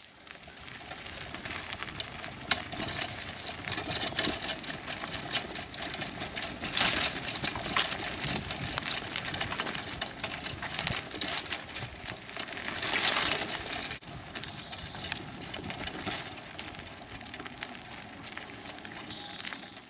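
Dog sulky with suspension rattling and clattering as a trotting dog pulls it over a bumpy dirt trail: a steady run of irregular clicks and knocks, louder about seven and thirteen seconds in.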